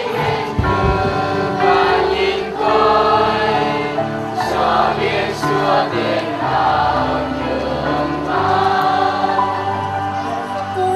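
A church choir singing with instrumental accompaniment, sustained notes held over a steady bass line.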